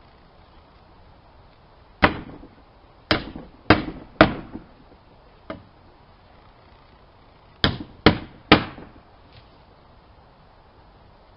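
A series of sharp knocks: four loud ones over about two seconds, a lighter one, then three more in quick succession a few seconds later.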